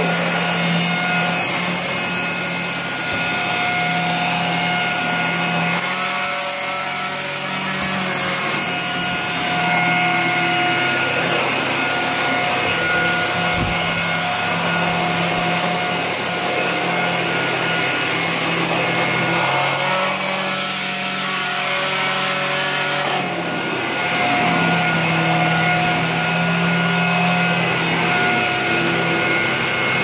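Fakir Darky upright stick vacuum cleaner running steadily while its floor head is pushed over a laminate floor: an even motor hum with a few held tones.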